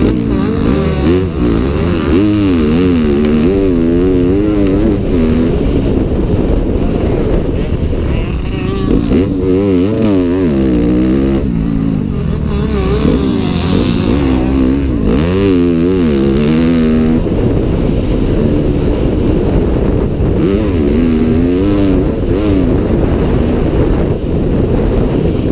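2015 Yamaha YZ250F's 250 cc four-stroke single-cylinder engine, fitted with an FMF titanium exhaust system, revving up and dropping back again and again through a motocross lap. It is heard from a helmet-mounted camera.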